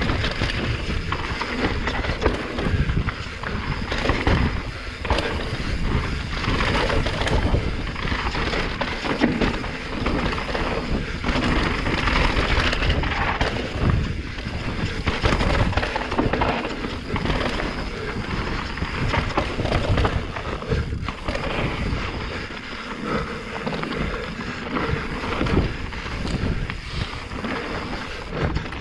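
Mountain bike descending a rough dirt and rock trail at speed: tyres rumbling over the ground with constant clattering knocks from the bike's chain and frame, and wind buffeting the microphone.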